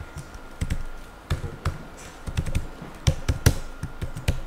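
Typing on a computer keyboard: about fifteen key clicks in an irregular run.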